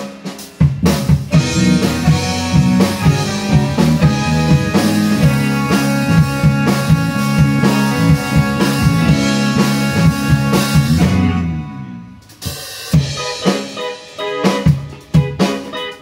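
Live band at a sound check: drum kit playing under held bass and chord tones for about eleven seconds, then the music fades out and only separate drum hits follow.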